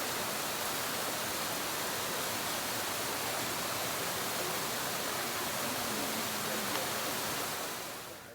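Waterfall rushing: a steady, even wash of falling water that fades away near the end.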